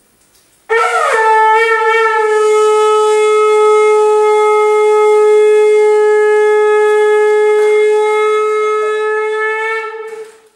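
Conch shell (shankh) blown in one long, steady note of about ten seconds, starting a moment in with a slight bend into pitch and cutting off near the end. It is the conch blast of a Hindu temple aarti.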